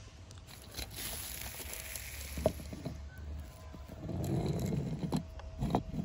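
Toy monster truck being handled and then pushed along a wooden ramp: a few sharp clicks, the sharpest about two and a half seconds in, then a rubbery rolling rumble of its tyres on the wood from about four seconds in.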